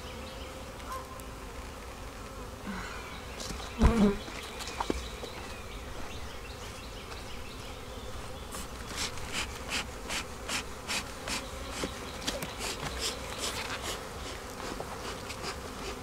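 Honeybees buzzing steadily over an open hive. About four seconds in there is a single knock, and from about halfway a run of quick scraping strokes, about three a second, as a hive tool works against the wooden frames.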